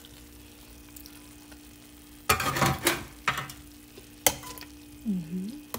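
Metal spatula scraping and clinking against a stainless steel pot as fried fish steaks are pushed into the soup: two noisy scrapes about two and a half seconds in, then a sharp tap about a second later, over a steady low hum.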